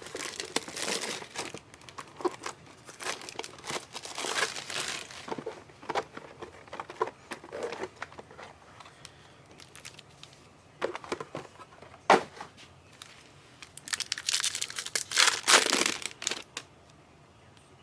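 Plastic trading-card pack wrappers being torn open and crinkled by hand, with irregular crackling that is busiest in the first few seconds, a sharp snap about twelve seconds in, and another burst of crinkling near the end.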